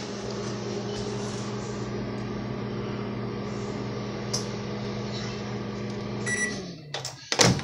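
A countertop microwave oven runs with a steady hum. About six seconds in it beeps and the hum winds down as it stops. Near the end comes a loud clack as the door is popped open with the release button.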